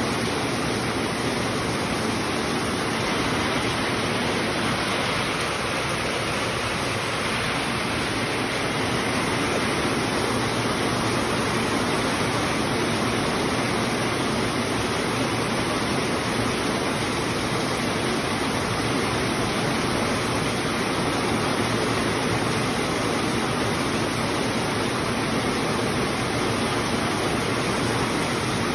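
Heavy rain pouring down steadily, an even hiss with no letup.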